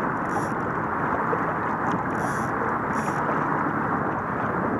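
Steady rush of wind on the microphone and water noise aboard a small boat, with a few short, faint high-pitched chirps scattered through.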